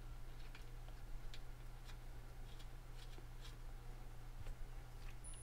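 Scattered light clicks and taps from hands fitting hoses and connectors in a car's engine bay, over a steady low hum.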